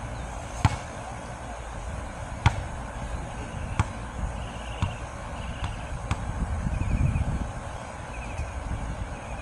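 A basketball shot striking the rim, then the ball bouncing on the hard court, about six sharp thuds spread over the first six seconds. Wind rumbles on the microphone throughout, swelling near the end.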